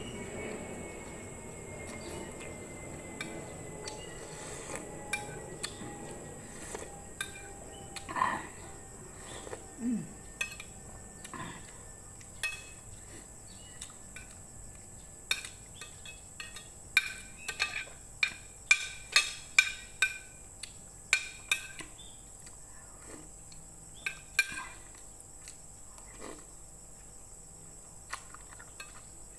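Metal spoon and fork clinking and scraping against a ceramic plate while noodle soup is eaten, with mouth and slurping sounds. The clicks come in quick runs, thickest in the second half. At the start, the drone of an aircraft passing overhead, with a slowly falling whine, fades away over the first ten seconds or so.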